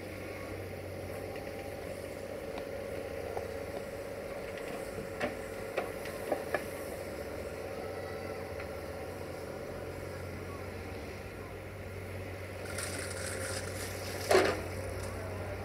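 Caterpillar 302.5C mini excavator's diesel engine running steadily as it digs sand, with a few sharp knocks around the middle and one louder knock near the end.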